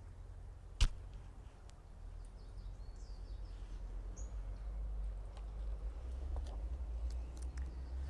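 Quiet outdoor background: a steady low rumble that grows slightly louder, faint bird chirps around the middle, and a single sharp click about a second in.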